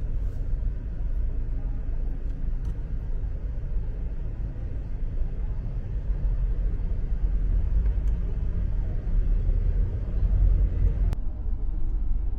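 Street noise: a steady low rumble like road traffic, with a few faint clicks and one sharper click near the end.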